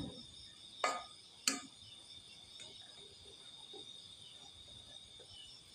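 Steady chorus of crickets chirping. Two sharp clinks of a metal spoon against a cooking pot come about a second and a second and a half in.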